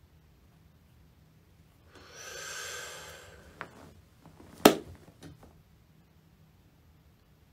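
A long breathy exhale close to the microphone, then a light click and, about a second later, a sharp, louder knock or clap followed by a few faint ticks.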